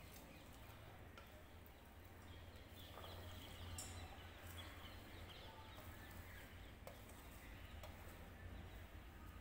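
Near silence: a low steady hum with a few faint clicks and soft rustles as chopped vegetables are tipped from a steel plate into a steel bowl.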